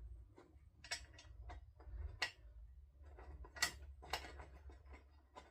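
Sharp clicks and taps of small screws and tools being handled while screws are started into a motorcycle's seat base, about five scattered knocks, over a low steady hum.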